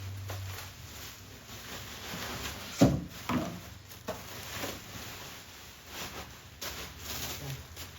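Handling noise from unpacking: rubbing and rustling of packaging, with two sharp knocks about three seconds in and a few lighter taps.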